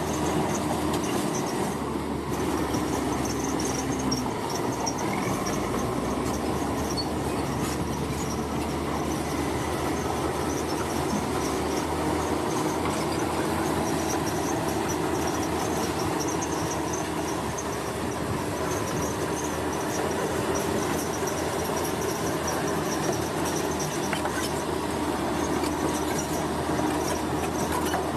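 Heavy construction machinery running steadily, a continuous mechanical rumble with faint high squeaks on top.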